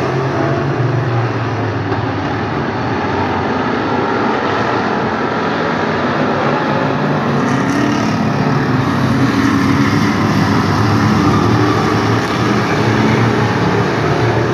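A field of hobby stock race cars racing in a pack, many engines running loud and steady together.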